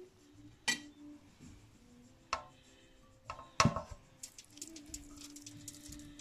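Three sharp clinks, the loudest about three and a half seconds in, then a run of soft crackles as bare hands rub marinade into the skin of a raw whole chicken resting on crinkled aluminium foil.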